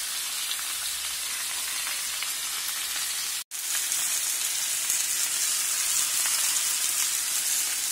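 Lamb pieces sizzling as they sear in hot olive oil in a tajine base. The sizzle drops out for a moment about three and a half seconds in, then comes back a little louder.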